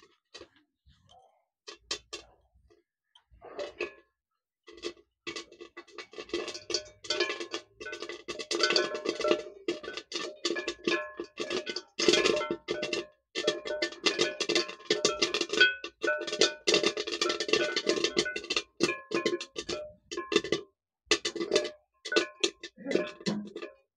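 Sun-dried maize kernels popping in a covered kadhai, pinging against the metal lid so that it rings. A few scattered pops at first, then rapid, nearly continuous popping from about five seconds in, thinning out near the end as the batch finishes.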